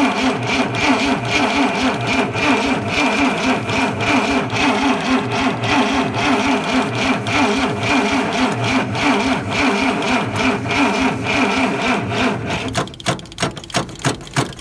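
Starter cranking a Dodge D300's Chrysler slant-six engine over in an even, pulsing rhythm, with a hand held over the carburettor throat to choke it on a first start after long storage. About thirteen seconds in the cranking stops and the engine turns a few more slowing strokes before it comes to rest.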